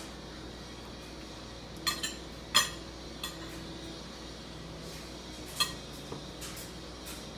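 A child's plastic spoon clinking against a ceramic bowl about six times, each clink sharp with a brief ring. Four come close together a couple of seconds in and two more come later, over a low steady hum.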